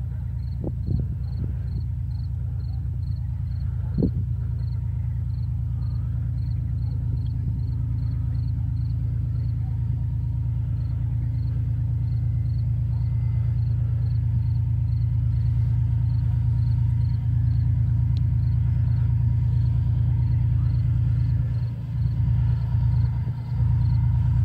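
Twin-section 2TE10L diesel locomotive's 10D100 two-stroke diesel engines running under load as it climbs a steep grade. The deep, steady rumble grows louder as the locomotive approaches.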